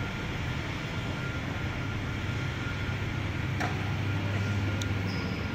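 Steady background noise of a large warehouse: a constant low hum under an even rushing noise, with two faint clicks in the second half.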